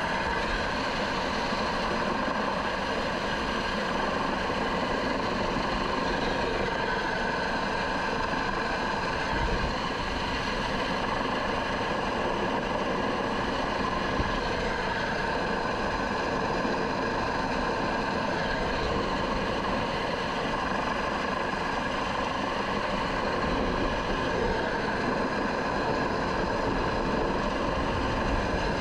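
MH-65 Dolphin helicopter in flight, heard from inside the cabin: a steady engine and gearbox whine of several fixed tones over a broad rushing noise, holding constant with no change in pitch.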